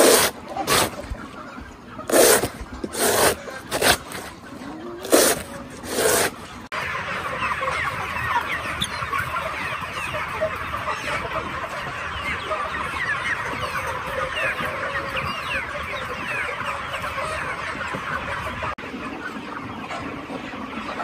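A long knife chopping through a banana stem, about seven sharp chops over the first six seconds. Then a large flock of young chickens clucks and cheeps continuously, a little quieter near the end.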